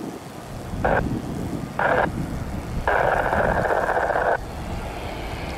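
Three bursts of static from an airband radio scanner tuned to the control tower, switching on and off abruptly: two short ones, then one about a second and a half long. A low, steady rumble runs underneath.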